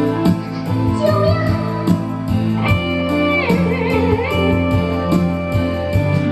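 Instrumental music with a steady beat and a guitar-like melody, with a warbling, wavering sound about halfway through.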